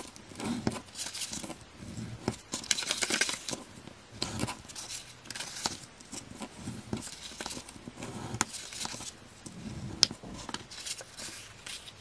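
A bone folder scraping in short strokes along scored folds in cardstock, with the card creasing and crinkling as it is pressed flat. A sharp tick about ten seconds in.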